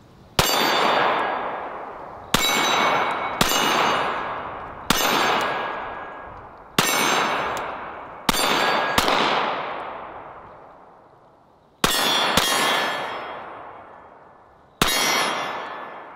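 Ten 9mm shots from a Shadow Systems MR920 pistol, irregularly spaced with two quick pairs, each trailing off over a second or two with a ringing tail. It is a full 10-round magazine fired through a new pistol during break-in.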